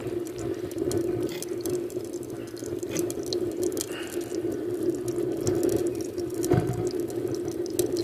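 Homemade Ozzirt-type waste motor oil burner stove burning with its oil drip turned up: a steady hum from the flame with scattered crackles and sputters throughout.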